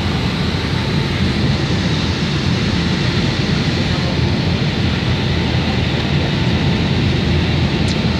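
Steady engine and airflow noise of a Boeing 757-200 airliner heard from inside the passenger cabin as it descends toward landing: an even, unbroken rush, heaviest in the low end.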